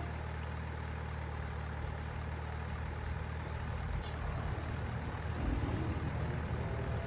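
Steady low hum of the small motors on a radio-controlled crane truck and tugboat, turning rougher and louder about five and a half seconds in.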